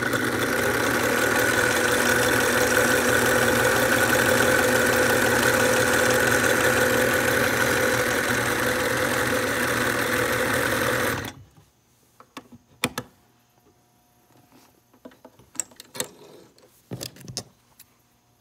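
White Series 77 Rotary sewing machine running steadily at speed, stitching cotton fabric with the stitch lengthened. It stops abruptly about eleven seconds in. A few faint clicks and knocks follow.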